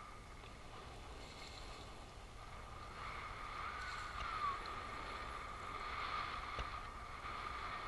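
Electric trolling motor whining steadily, getting louder about three seconds in, over low water noise around the boat.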